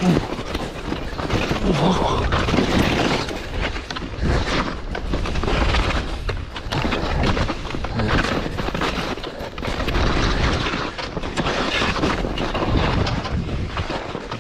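Skis sliding and scraping through heavy, rained-on snow in an uneven rhythm of strokes, with wind buffeting the microphone.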